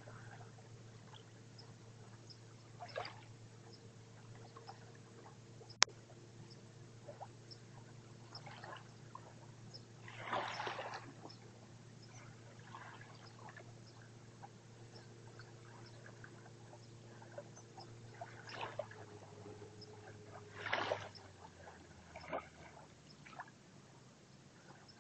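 Calm sea lapping at a sandy shore in short, soft splashes every few seconds, the loudest about ten and twenty-one seconds in, over a steady low hum that fades out near the end. One sharp click about six seconds in.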